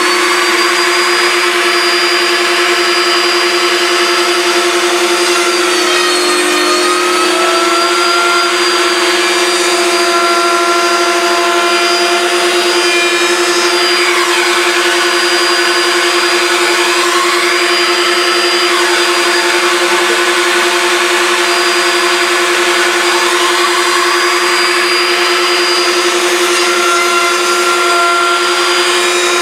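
Table-mounted wood router running steadily with a high whine as a 1/4-inch bit cuts a mortise in the maple box for a lid-support hinge; the pitch dips briefly about six seconds in.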